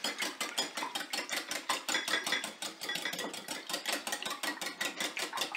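Wire whisk beating eggs and half-and-half in a glass mixing bowl, its wires clicking against the glass in a rapid, even rhythm.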